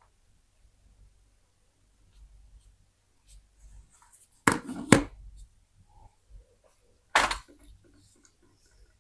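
Handling of a small plastic mobile phone on a hard surface: soft scrapes and small clicks, with two sharp knocks about four and a half to five seconds in and another about seven seconds in.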